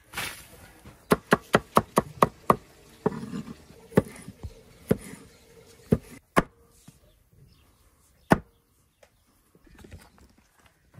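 A steel cleaver chopping pickled cucumbers on a wooden cutting board: first a quick run of about six chops, then slower single chops spaced about a second apart, the hardest one about two-thirds of the way through. A brief splash of water poured onto grass comes at the very start.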